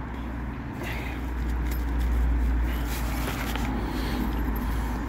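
A low, steady rumble, swelling a little after about a second, with light rustling of the tent's nylon fabric and mesh as it is handled.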